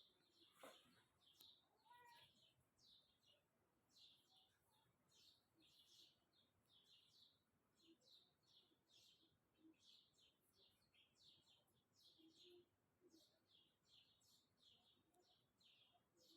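Small birds chirping faintly and repeatedly, short high chirps coming about twice a second.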